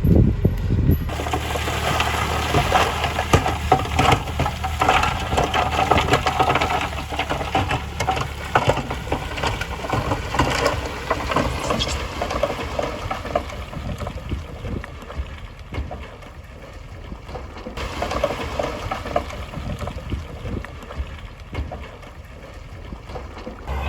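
Heavy earthmoving machinery working a gravel road: a low engine hum under a dense, irregular crunching and clattering of gravel and stones. The clatter is loudest in the first half and eases off after the middle.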